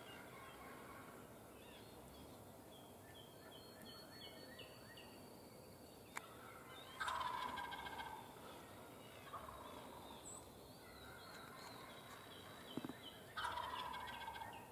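Eastern wild turkey gobbler gobbling: two loud rattling gobbles, one about seven seconds in and one near the end, with a fainter gobble between them.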